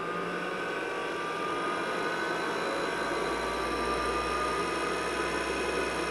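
IBM 5150 PC running just after power-on: a steady hum and whine from its power-supply fan and IMI hard disk, with several high thin tones and a deeper low hum that grows from about halfway.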